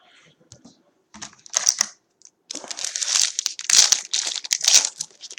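Foil trading-card pack wrapper crinkling and tearing as the pack is opened by hand: irregular crackly rustling in bursts, heaviest in the second half.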